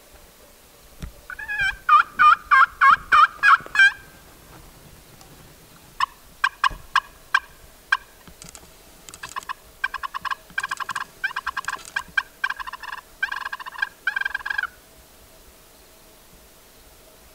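Turkey friction pot call played with a wooden striker, imitating a hen turkey: a run of about eight loud yelps, then a few short single notes, then a longer, quieter series of rapid notes that ends a few seconds before the close.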